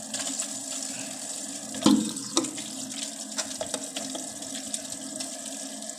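Toilet tank fill valve running, water pouring into the cistern as it refills, with a couple of sharp clicks about two seconds in.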